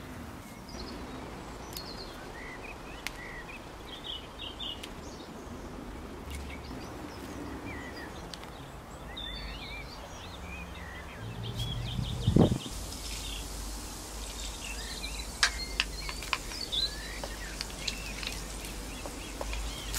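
Birds chirping in the background. A little past halfway there is a brief louder sound, then hot oil in a wok starts sizzling, with sharp crackles as cumin seeds and dried red chillies fry.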